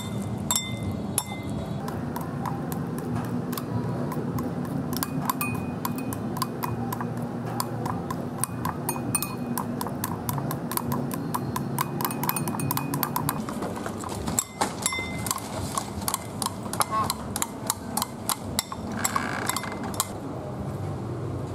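Metal spoon and chopsticks clinking and scraping against a ceramic bowl while mashing and stirring raw river worms into a wet paste: quick irregular clicks, some with a short ringing note.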